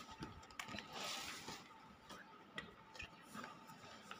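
Faint rustle of notebook paper being handled and its pages turned, with a few small clicks.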